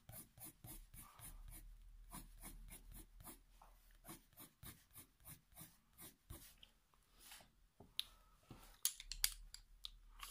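Faber-Castell Polychromos coloured pencil hatching on paper: quick, faint scratchy strokes, about three or four a second, with a few louder strokes near the end.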